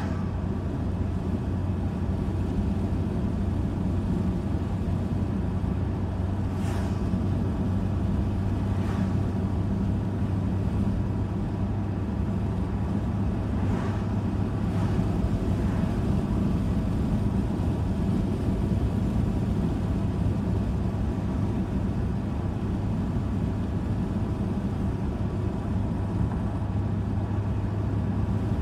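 Steady low drone of tyre and engine noise heard from inside a moving car, with a few oncoming vehicles briefly whooshing past.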